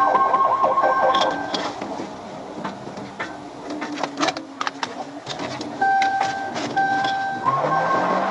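Police car siren on a fast warble that cuts off about a second in. In the gap come scattered clicks and a repeated steady beeping tone, and the fast warble starts again near the end as an engine revs up.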